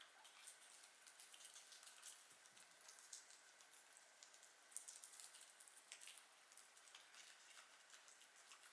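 Guinea pigs chewing lettuce and carrot: faint, quick, irregular crunching and clicking.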